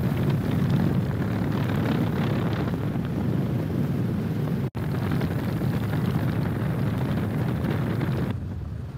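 Strong wind buffeting the microphone, a loud, steady low rush with no voice over it. It breaks off for an instant about halfway through and eases a little near the end.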